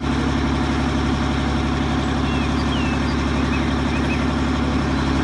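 Heavy dump truck's diesel engine running steadily while the tipper bed is raised to dump its load, with an even, unchanging note.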